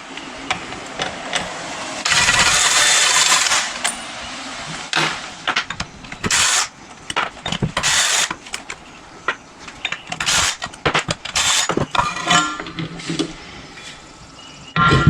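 A power tool spinning out crankcase bolts in bursts, one long run of about two seconds near the start and several shorter ones later, with metal clinks and knocks of tools and bolts in between.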